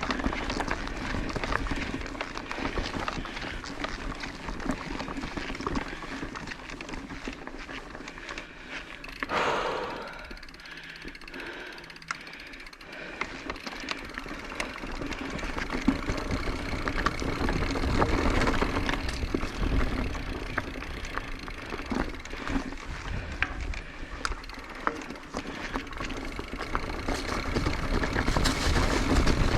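Orbea Occam full-suspension mountain bike ridden along a dirt singletrack: a steady rush of tyre and wind noise with scattered clicks and rattles, getting louder near the end.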